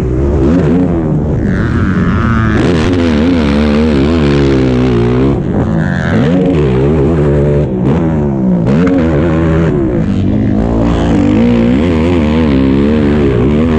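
Honda TRX450 race quad's single-cylinder four-stroke engine under hard riding, its revs climbing and dropping again and again as the rider accelerates, shifts and backs off. Heard close up from a camera mounted on the quad.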